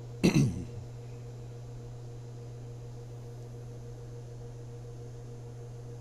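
A person briefly clears their throat just after the start, then a steady low electrical hum carries on unchanged.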